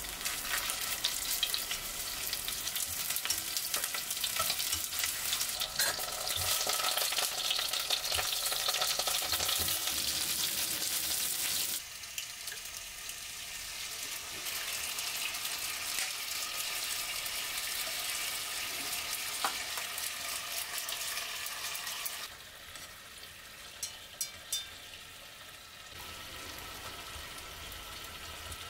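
Chicken and eggplant pieces sizzling and crackling in hot oil in a nonstick pot while they are turned and stirred. The sizzle drops abruptly to a quieter level about twelve seconds in and again about twenty-two seconds in, with a few light clicks near the end.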